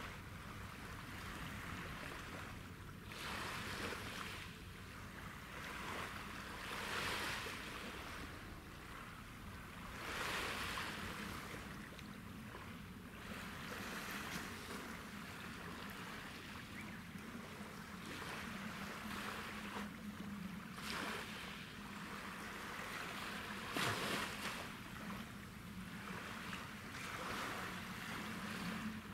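Small waves washing on the shore, swelling and fading every few seconds, over a low steady ship-engine drone from the ferry and tug offshore. A short knock comes about three-quarters of the way through.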